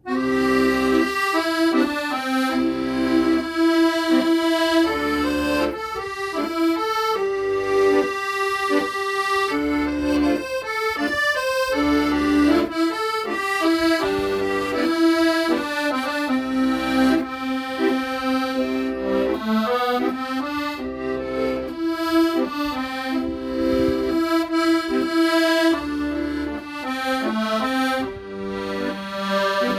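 Accordion playing a slow melody in chords, with repeating bass notes underneath, starting suddenly.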